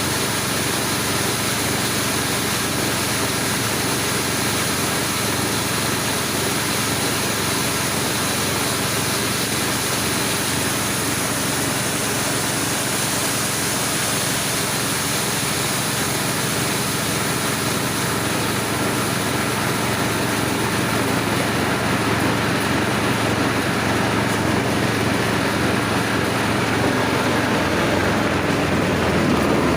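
Corn grinding machine running steadily, driven by a small engine.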